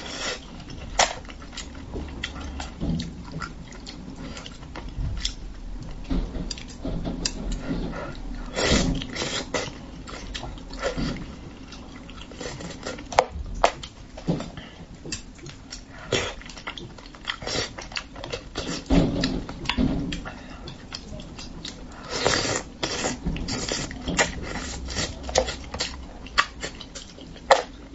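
Close-miked mouth sounds of eating spicy braised fish with chopsticks: wet chewing, lip-smacks and slurps. There are many short smacks and a few longer slurps, one about nine seconds in and several past the twenty-second mark.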